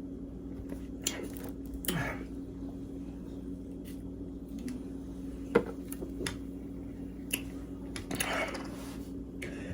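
Faint mouth and throat sounds of a person pausing mid-drink: a few small clicks, a swallow and a soft breath out, the sharpest click about five and a half seconds in, over a steady low hum.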